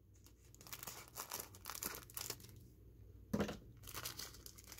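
Plastic wrapper of a trading-card rack pack crinkling and tearing as it is opened by hand. Soft scattered crackles, with one louder rustle a little past halfway.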